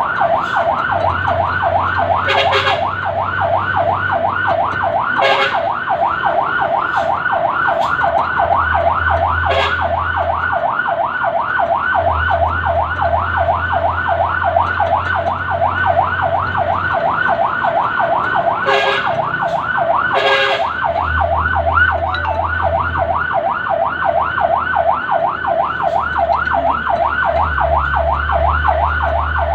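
Fire engine's electronic siren sounding a fast yelp, a rapid rising-and-falling wail of about three sweeps a second, warning traffic to pull over. A low engine rumble swells and fades under it, and a few brief sharp knocks cut in.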